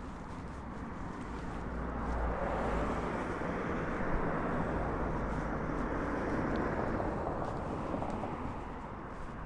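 A motor vehicle driving past on the road, its engine and tyre noise swelling over a couple of seconds, holding, then fading near the end.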